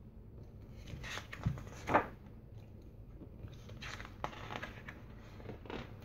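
A large picture book's paper page being handled and turned, with a few soft swishes and rustles of paper.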